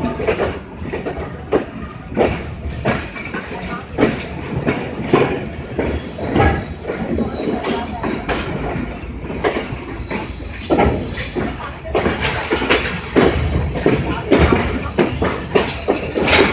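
Passenger train coaches rolling along the track: a steady running rumble with an irregular clickety-clack of wheels knocking over rail joints, heard from the coach's open doorway.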